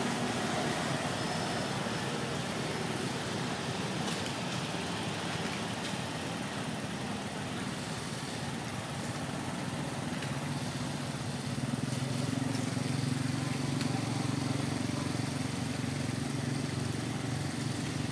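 Steady road traffic noise, with a low engine hum that grows louder about ten seconds in.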